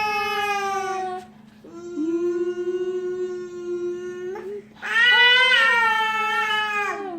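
A small child and a woman making long, held vocal sounds, like sung 'ooh' notes: three sustained notes of a few seconds each with short breaks between, the middle one lower and the pitch sagging slightly at the end of each. A faint steady hum runs underneath.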